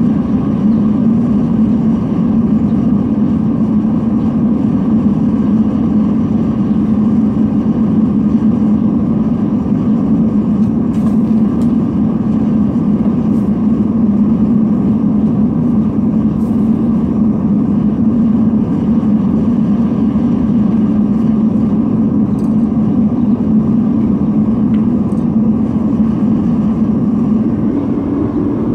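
Forced-air burner of a metal-melting furnace making a steady, unbroken roar, its air turned up to bring the crucible to melting heat.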